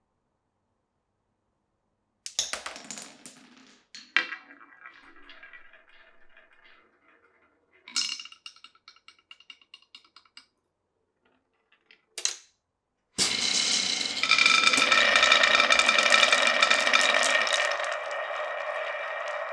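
Glass marbles dropping, clacking and rolling along a wooden marble run, in separate bursts of clicks and rattles starting about two seconds in. From about thirteen seconds a loud continuous rolling rattle with a steady ringing tone takes over.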